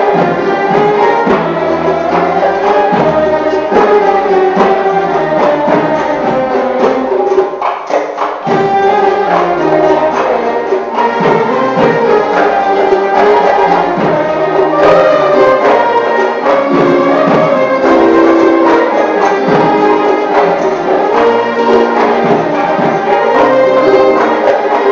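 Arab instrumental ensemble of qanuns and violin with guitar playing a sama'i in maqam nahawand, plucked qanun notes under the violin's melody, briefly softer about eight seconds in.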